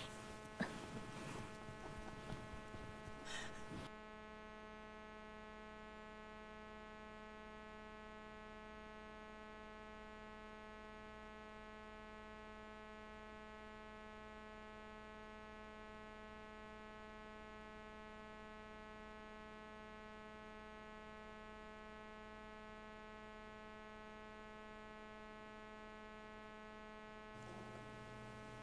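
Faint, steady electrical mains hum with many overtones. A few clicks and knocks sound in the first few seconds.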